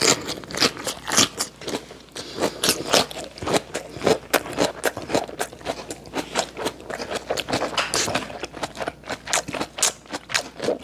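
Chewing of a mouthful of food, a hand-rolled wrap of raw yellowtail sashimi, picked up by a lapel microphone held right at the mouth: a rapid, irregular run of clicks and smacks.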